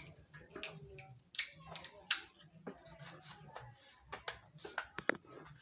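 Faint scattered clicks and taps of hands and small tools working on electrical wiring at a joint box.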